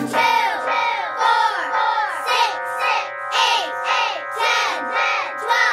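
Cartoon clock chime striking twelve, about a dozen quick strokes roughly two a second, each dropping in pitch, over a held musical chord.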